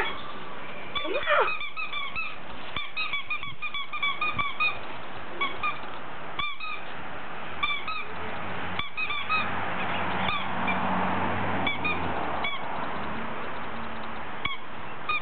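Squeaky dog toy squeezed over and over: short high squeaks of the same pitch, in quick runs of three or four a second early on, then more spaced out. Two louder sliding squeals near the start.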